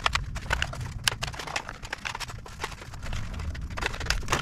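Fast, irregular clicking and clattering of hands working parts and wiring on a motorcycle's front end, sped up in a time-lapse, over a low steady rumble.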